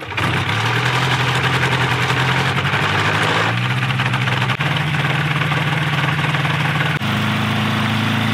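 Two-stroke engine of an Avid light aircraft running at low power with the propeller turning. The engine note shifts pitch a few times and steps up near the end.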